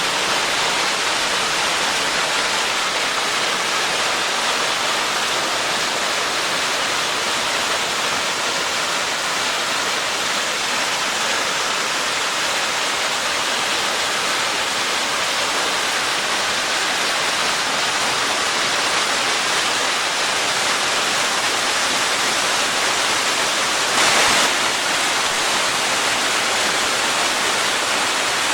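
Waterfall pouring with a steady, loud rush of falling water. About 24 seconds in there is a brief louder burst.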